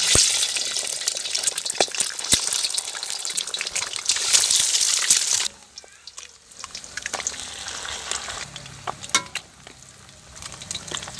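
Beaten egg sizzling as it fries in hot oil, stirred with a utensil that clicks against the pan. The sizzle cuts off suddenly about halfway through, leaving a much quieter sizzle and a few clicks.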